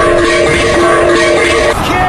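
Music: a few steady held notes sounding together over loud, dense noise.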